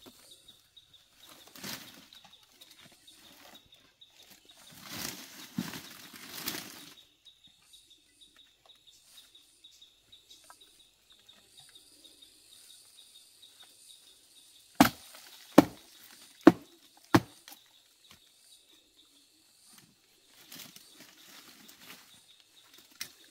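Rustling through leafy undergrowth, then four sharp knocks less than a second apart, a hand tool striking while digging out tubers, over a steady thin high-pitched drone.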